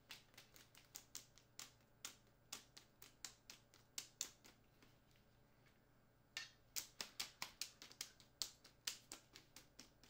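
Quick, irregular clicks and taps of a camera strap's magnetic quick-release buckle being handled, a few a second, with a pause of about two seconds around the middle.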